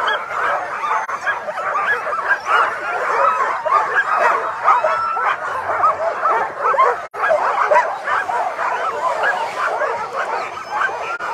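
Many harnessed Alaskan husky sled dogs barking at once, a continuous din of short, overlapping high calls. The dogs are excited and eager to run, waiting at a race start line. The sound cuts out for an instant about seven seconds in.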